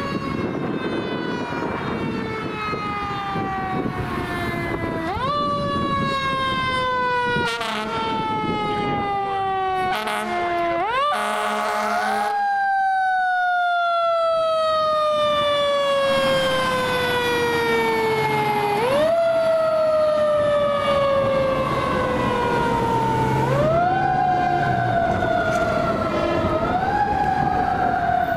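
Fire engine's mechanical siren repeatedly winding up quickly and coasting down slowly in pitch, with a short loud blast, likely the air horn, around the middle.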